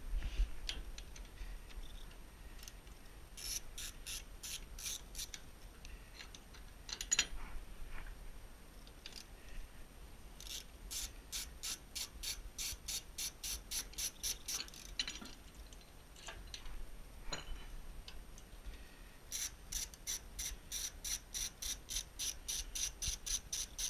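Hand ratchet wrench clicking in quick runs of about five clicks a second as bolts holding a pellet stove's auger are backed out, with a few single knocks of metal parts between the runs.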